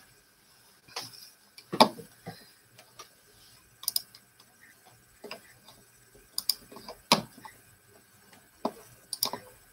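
Irregular light clicks and taps, roughly one a second, as of small objects being handled or keys and buttons being pressed.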